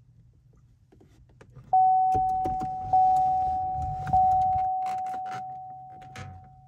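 Chevrolet Camaro ZL1 dashboard chime sounding three times, about a second apart, each single ping dying away slowly, as the push-button start switches the ignition on without starting the engine. Light clicks of the start/stop button being pressed.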